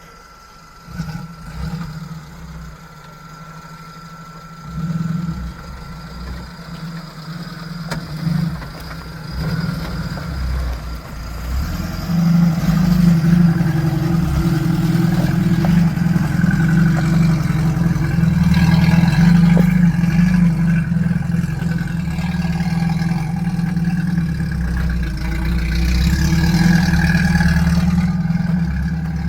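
An off-road vehicle's engine, uneven and lower at first, then from about twelve seconds in running loud and steady as it is worked under throttle.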